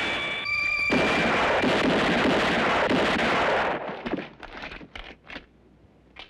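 Film-soundtrack gunfire: a dense, loud stretch of shots with echo and a brief ringing tone about half a second in, then about five separate revolver shots near the end, fading.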